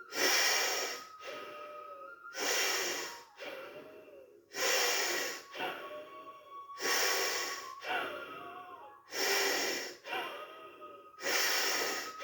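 Forceful bellows breathing through one nostril, with the other held shut, in bhastrika pranayama. About six loud, hard breaths come roughly one every two seconds, each followed by a softer one.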